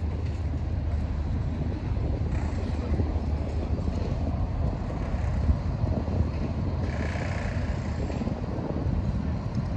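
Steady low rumble, with no clear pitch and no distinct events.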